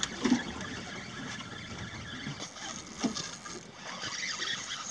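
Steady noise of a small boat out on open water: water against the hull and wind.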